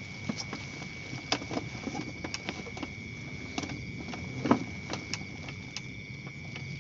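Irregular light clicks and knocks from an angler handling gear and a plastic bag at the rod rack. The loudest knock comes about four and a half seconds in. A steady high-pitched whine runs underneath.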